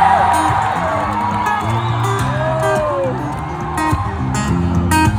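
Live acoustic guitar fingerpicking a stepping bass-and-treble pattern, with sharp percussive hits near the end, while the crowd whoops and cheers over it.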